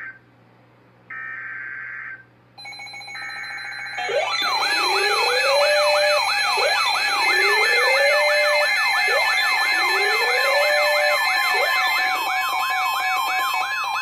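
Two short bursts of EAS/SAME header data tones, then a desk full of NOAA weather radios going off together for a severe thunderstorm warning. From about four seconds in, their alarms overlap: warbling sirens about twice a second, repeating rising whoops and high beeps. Near the end a steady warning tone joins in.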